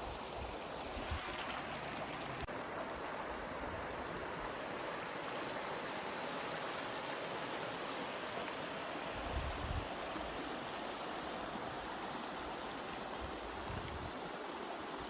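Rocky mountain creek rushing steadily over stones, with a soft low bump about ten seconds in.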